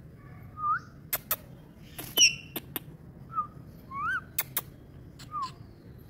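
Rose-ringed parakeet giving short soft chirps, each a brief rising or falling note, with sharp clicks scattered between them; the loudest is a sharp click-squeak about two seconds in.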